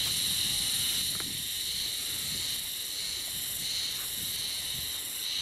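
Steady high-pitched insect buzzing, with faint rustles and clicks of camping gear being handled during packing up.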